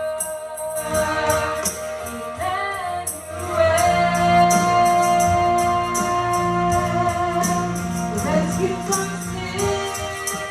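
Gospel worship music: singing over sustained instrument notes, with a tambourine shaken to a steady beat.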